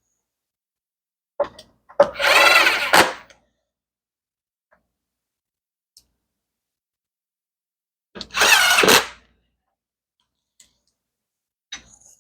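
Cordless drill/driver driving screws back into a fridge's rear panel: two runs of the motor about a second each, about six seconds apart, with small clicks between.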